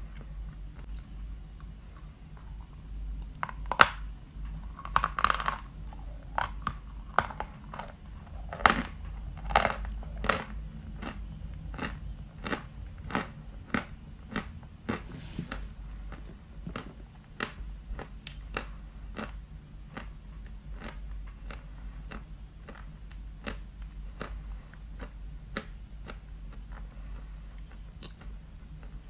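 A person biting into and chewing white chalk: a run of sharp, dry crunches, the loudest and most crowded in the first ten seconds or so, then lighter crunching at about one or two a second.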